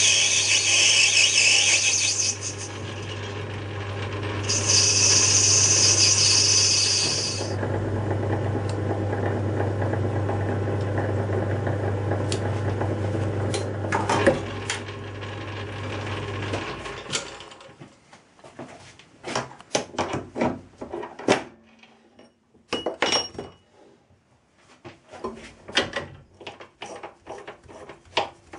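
Small metalworking lathe running with a steady motor hum while the cutting tool turns a brass part; a loud hissing cutting noise comes in twice in the first seven seconds. The motor stops a little past halfway, followed by scattered clicks and knocks of hands working the chuck and tailstock.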